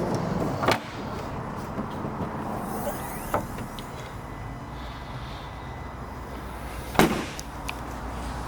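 Car doors shutting: two solid thuds about six seconds apart, with a lighter knock between them, over a steady low hum.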